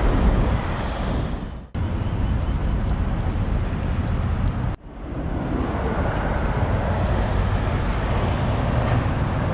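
Steady roadside traffic noise from cars, buses and trucks on a busy multi-lane city road. It cuts out briefly twice, at about two and five seconds in.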